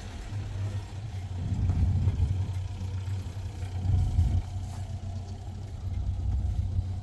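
Engine of an old Paykan sedan running at low revs as the car pulls away slowly, a steady low hum that swells from about a second and a half in and peaks around four seconds.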